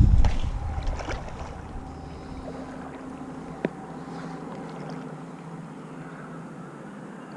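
Wind buffeting the microphone, dying down after the first second or so, then a faint steady low hum with a single sharp click about halfway through.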